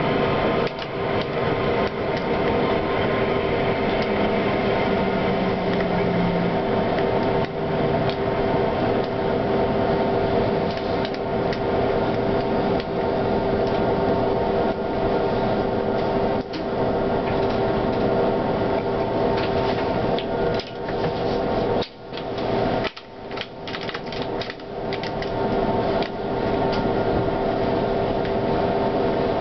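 Tram running along its track, heard from the front cab: a steady hum with several held tones over rolling noise, broken by frequent clicks and rattles, and thinning out briefly a little past the middle.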